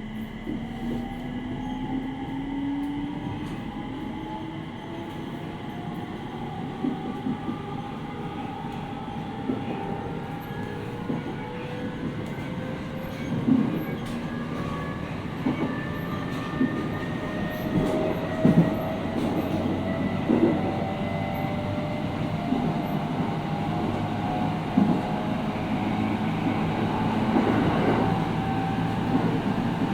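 JR East 701 series 5500-subseries electric train heard from inside its motor car. Several whining tones from the inverter and traction motors rise steadily in pitch as the train accelerates, over a running rumble. From about ten seconds in, wheel knocks over rail joints come more and more often.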